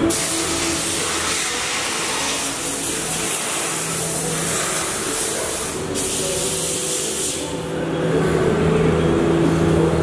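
Steady hiss of compressed air in a silicone rubber moulding shop, over a low, steady machine hum from the compression-moulding press. The hiss thins out for a moment about six seconds in.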